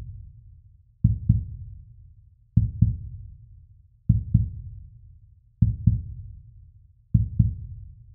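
Heartbeat sound effect: slow double thumps, lub-dub, a pair about every second and a half, five times.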